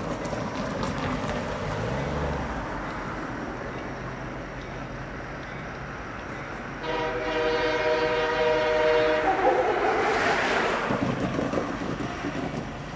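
Approaching train sounding its horn: one long multi-note blast about seven seconds in, lasting a couple of seconds and dropping in pitch at its end, over the steady rumble of the train coming in.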